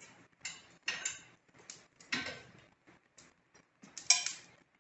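Irregular metallic clinks and knocks of a cast-iron pot's wire bale against an iron S-hook and fireplace crane as the pot is hung over the fire, with the loudest clank about four seconds in.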